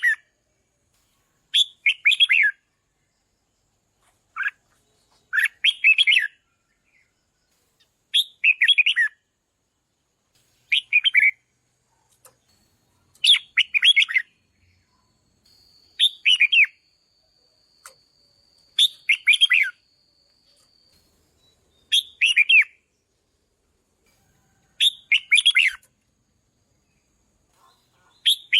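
Red-whiskered bulbul singing: short, loud, warbling song phrases of about a second each, repeated about every three seconds with silence between.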